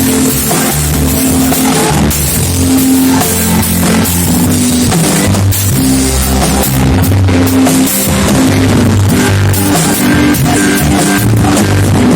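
Loud live band music with drum kit, bass and guitar playing a steady rock beat, typical of congregational praise music.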